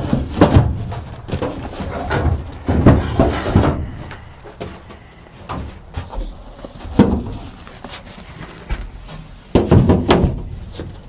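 Upholstered seat cushions and a padded backrest being shoved and set back into place on a boat's dinette, giving a series of thumps and knocks, the loudest about three seconds in and about ten seconds in.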